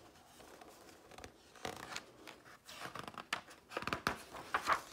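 A hand handling and turning a page of a hardcover picture book: a series of short paper rustles and flaps, loudest near the end as the page is lifted over.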